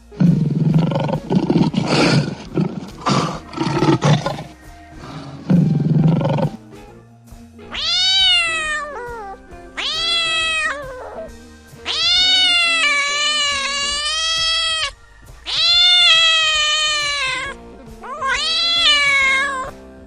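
A big cat's rough, growling roars for about six seconds, then five long meow-like calls, each starting with a falling pitch. Music plays underneath.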